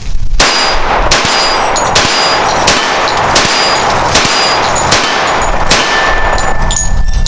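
Eight shots from a Ruger Lightweight Commander .45 ACP 1911 firing 230-grain full-metal-jacket ball ammunition, in an even string about three-quarters of a second apart. Each loud crack is followed by a brief metallic ringing.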